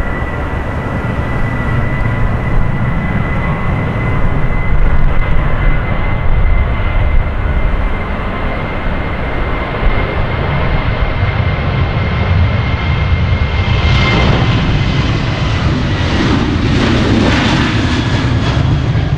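Jet engines of a Boeing 737-800, CFM56 turbofans, running at high power as the airliner rolls along the runway. It gives a steady high whine over a low rumble, and a broader roar swells from about two-thirds of the way through as the plane draws close and passes.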